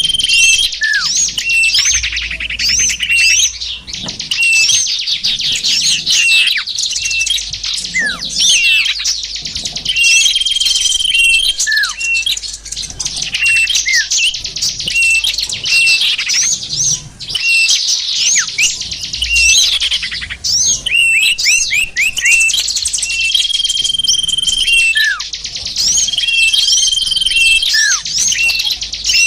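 Lure recording of small songbirds: a loud, dense jumble of high chirps, fast trills and quick downward-sliding notes, with a steady held whistle that comes back every few seconds. It is the kind of call played to draw small birds in for trapping.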